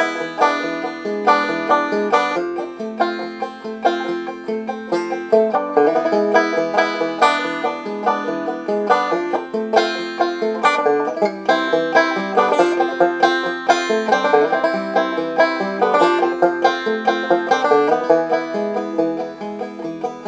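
Banjo being picked, a quick, unbroken run of bright plucked notes in a steady rhythm.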